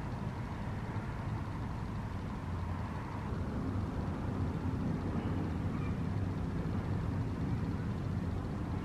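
Steady low background rumble, getting a little louder about three seconds in.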